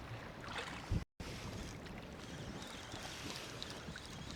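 Wind and water lapping against a small boat's hull as it drifts, with faint splashy ticks. A single dull knock about a second in, then the sound drops out for an instant.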